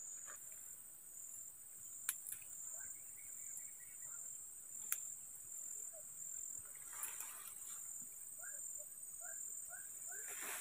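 Steady high-pitched insect chorus, with rustling of leaves and stems as a person pushes through undergrowth. Two sharp clicks come about two and five seconds in, and a run of short chirps near the end.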